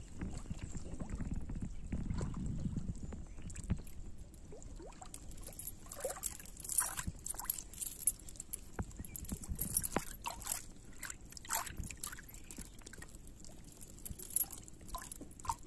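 Muddy water sloshing and gurgling in a mud hole as a chicken bait on a metal chain is lowered and worked in it, with the chain's links clinking. A low rumble fills the first few seconds, then come scattered short splashes and clinks.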